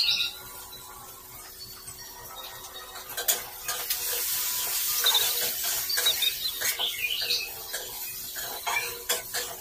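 A spatula stirring and scraping squid and tofu in a wok, with frying sizzle. The stirring turns louder and busier about three seconds in, with many short scrapes and knocks against the pan.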